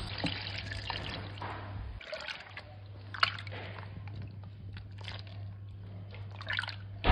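Lumps of freshly churned butter being worked by hand and a wooden spatula in buttermilk in a pot: irregular wet sloshing and squelching, with a couple of louder squelches about three seconds in and near the end.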